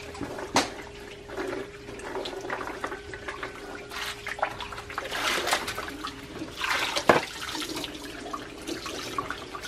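Water splashing and sloshing in a plastic bucket as hard green manzanilla fruits are scrubbed by hand and water is poured over them from a plastic basin, in uneven bursts. Two sharp knocks, one early and one about seven seconds in.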